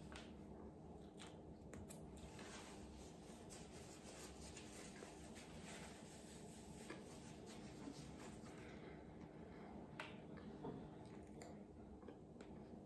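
Faint eating sounds: chewing a Big Mac, with scattered soft mouth clicks and light rustles from handling the burger and a paper towel, over a low steady room hiss.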